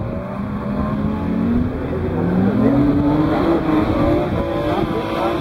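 BMW E36 325i's straight-six engine revving hard as the car drifts on a wet track. The engine pitch dips about two seconds in, then climbs and holds high.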